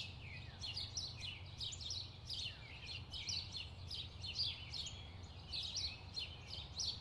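Several small birds chirping and twittering without a break, in many short, quick notes that slide downward, over a low, steady rumble.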